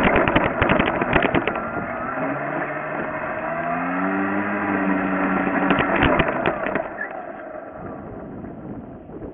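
Onboard sound of an RC model airplane: air rush with a string of knocks and rattles, while the motor and propeller tone rises and then falls in pitch in the middle. Near the end the sound dies down to a quieter wind hiss as the plane slows.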